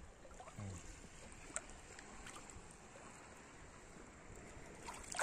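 Shallow seawater sloshing and swirling as a hand rakes through the sandy bottom for clams, with a few faint clicks. A brief low voice sound comes about half a second in.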